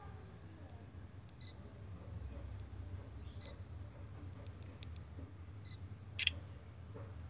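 Smartphone camera sounds from a Sony Xperia Z1 Compact: three short high beeps about two seconds apart, then a sharp shutter click near the end, over a faint low hum.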